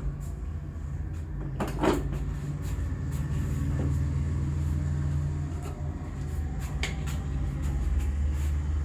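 Hands working over skin during a head and neck massage, with two short sharp sounds, one about two seconds in and one about seven seconds in, over a steady low rumble.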